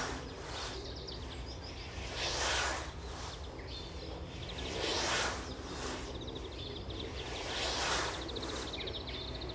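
A 42-inch Nash English scythe blade swishing through lawn grass in steady mowing strokes, one stroke about every two and a half to three seconds, four in all.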